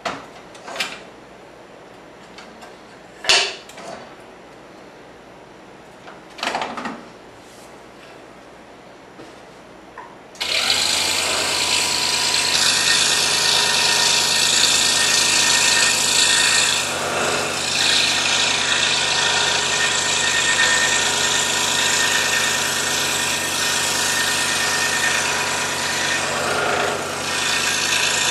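A few light clicks and knocks as the scroll saw blade is threaded through the workpiece and clamped. About ten seconds in, the scroll saw starts suddenly and runs steadily as its blade cuts fretwork in thin wood.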